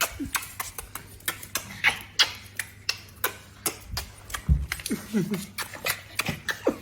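Small dogs' claws clicking quickly and unevenly on a hard floor, with a few short whimpers and squeaks from the excited dogs.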